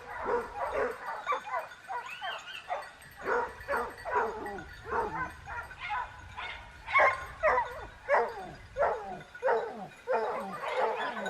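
A dog barking and yipping over and over, in short high calls, many of them falling in pitch.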